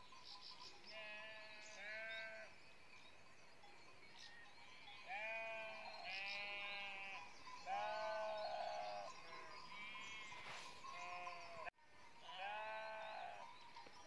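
A flock of sheep bleating: a string of separate calls, some overlapping, several with a wavering, quavering pitch, over a faint steady high tone.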